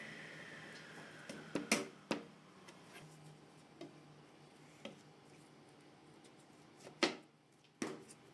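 A power tool spinning down with a falling whine, then a series of sharp knocks and clicks of tools and wood being handled on the bench, the loudest two near the end.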